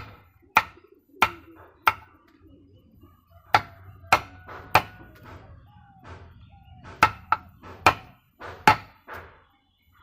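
A knife chopping through dragon fruit cactus stems onto a wooden block: about a dozen sharp chops in runs of about three, with a short pause midway.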